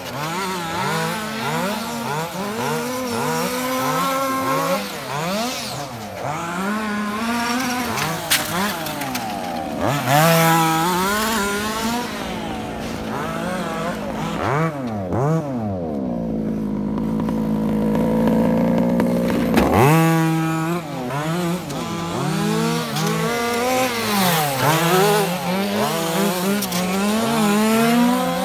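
Zenoah 26cc two-stroke engine of a 1/5-scale FG Mini Challenge RC car, revving up and dropping back again and again as the car accelerates and brakes around the track. At times a second car's engine can be heard under it, and about halfway through the pitch settles low and steady for a few seconds before the revving picks up again.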